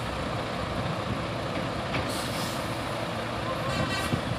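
Heavy trailer truck's diesel engine running steadily while it manoeuvres. An air-brake hiss comes about two seconds in, and a short high-pitched tone sounds near the end.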